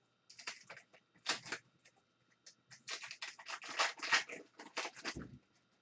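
Trading cards being handled and flipped through: a run of short clicks and rustles, scattered at first and then coming thick and fast for the last couple of seconds.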